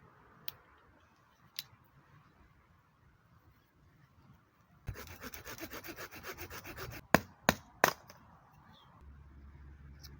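A small hand saw cutting through wood in quick, rasping strokes for about two seconds, followed by three sharp, loud cracks.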